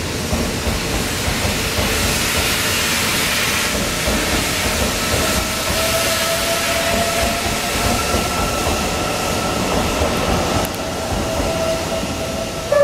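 The Train Suite Shiki-shima (E001 series) passing along a station track: a steady rush of wheels and running gear on the rails, with a faint tone that rises slightly in pitch partway through.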